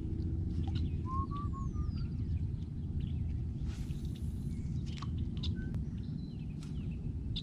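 Birds chirping, with a short run of rising chirps about a second in and a falling whistle soon after, over a steady low rumble. A brief hiss comes about four seconds in.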